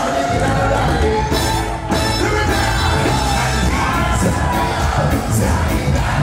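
Live band playing a song with electric guitar, bass and drums, a voice singing over it, and yells from the crowd.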